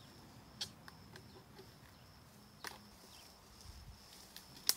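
Dry deadwood and brush snapping: a few sharp cracks at uneven intervals, the loudest near the end, over a faint steady high tone.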